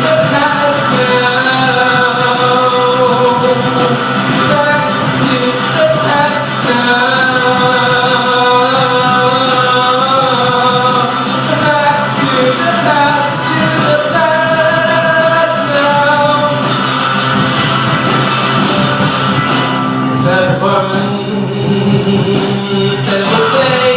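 A rock song performed live: a singer holding long notes over a band.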